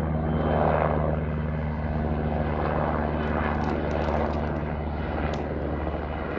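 Helicopter in flight overhead, a steady low rotor and engine sound.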